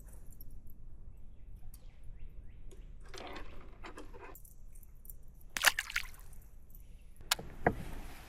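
Water splashing and dripping at a fishing kayak: a few short splashes, the loudest about five and a half seconds in, followed by a couple of sharp knocks.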